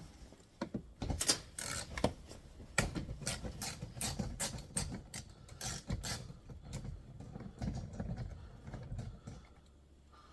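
A 1/4 inch drive ratchet with a 10 mm socket on an extension clicking in quick, irregular runs as it loosens the roof bolt holding the shark fin antenna. The clicking stops near the end.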